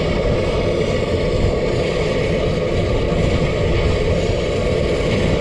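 Mount Washington Cog Railway steam locomotive climbing the grade toward the microphone, pushing its passenger car, heard as a steady mechanical running noise. Wind buffets the microphone underneath.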